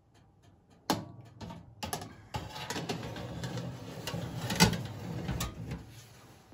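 Metal baking tray scraping and clattering as it is slid along the oven's side runners, with scattered clicks and a sharper knock about four and a half seconds in.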